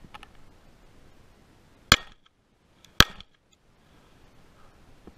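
Two pistol shots from a Glock, about a second apart, each followed by a short ringing tail.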